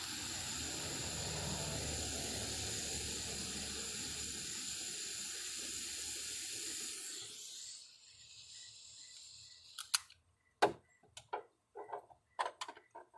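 Handheld torch flame hissing steadily while it heats a self-soldering heat-shrink butt connector to melt the solder ring and shrink the sleeve. The hiss stops about seven and a half seconds in, followed by a few light clicks and knocks.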